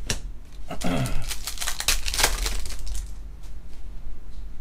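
Foil wrapper of a trading-card pack crinkling as it is torn open by hand, with a dense run of crackles about a second in, then quieter rustling of the cards.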